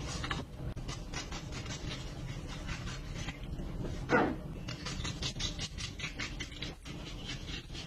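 Knife cutting and scraping through raw salmon on a plastic cutting board: a run of short scrapes and taps, with a single louder thud about four seconds in, over a steady low hum.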